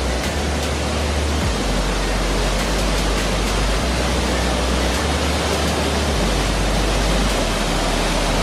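Waterfall pouring over a rock ledge into a pool: a steady, even rush of falling water.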